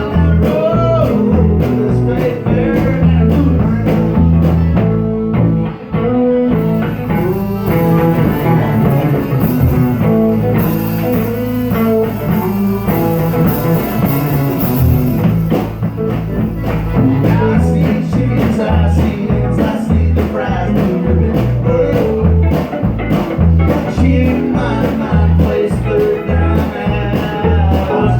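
Live band playing blues-rock: guitar over a steady pulsing bass and drum beat, with a singing voice.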